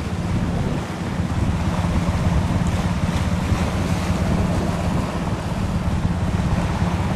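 Military helicopter hovering low, its rotors and turbine engines making a steady, fluttering drone, mixed with the engines of speedboats running beneath it and wind buffeting the microphone.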